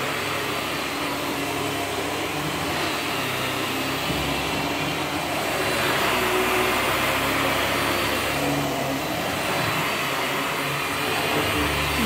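Upright bagless vacuum cleaner running steadily while pushed over carpet, the noise rising a little about five seconds in.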